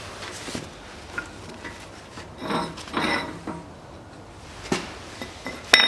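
Steel parts clinking and knocking against each other with short metallic ringing, as the old wheel bearing is set on the new one in the steering knuckle to serve as a press driver. There are a few clinks in the middle and a sharp, loudest ringing clink near the end.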